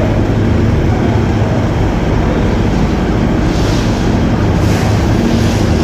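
A boat's engine rumbling steadily in rough seas, with wind buffeting the microphone and big waves rushing against the hull, two louder surges in the second half.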